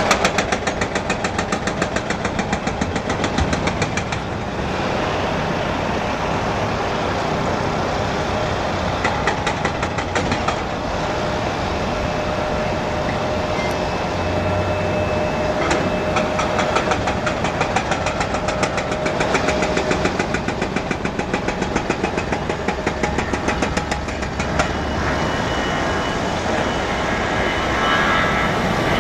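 Airbus A320-214's twin CFM56 turbofan jet engines at takeoff power during the takeoff roll: a steady roar that grows louder near the end as the aircraft nears. A fast, even rattling runs through the roar.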